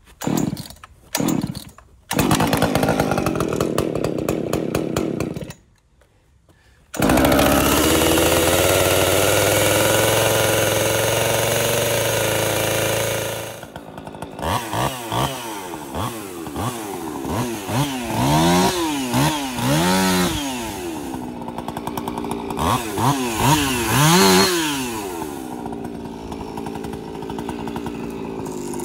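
Jonsered 2156 woods-ported two-stroke chainsaw being started after sitting unused for a couple of years on fresh fuel. It gives two brief sputters, fires and runs for a few seconds, then dies. It is restarted about seven seconds in and runs fast and steady. It then drops to a lower idle, with several blips of the throttle revving up and back down.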